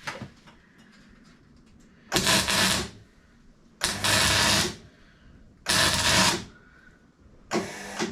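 Welder laying four short bursts of weld onto a water pump housing to fill pinholes in the earlier weld. Each burst is a little under a second long.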